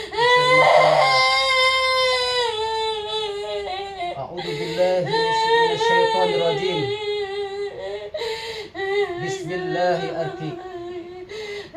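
A woman wailing in high, drawn-out cries, long held notes that waver and slowly fall, her reaction to the ruqyah recitation.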